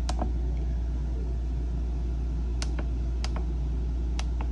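Push buttons on an RV's wall-mounted lighting control panel clicking as they are pressed. There are four presses, each a quick double click: one at the start, then three in a row from about two and a half seconds in. A steady low rumble runs underneath throughout.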